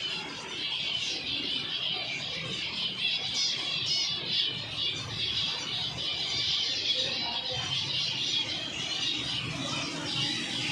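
A flock of zebra finches calling all together: many short high calls overlapping in a continuous chatter.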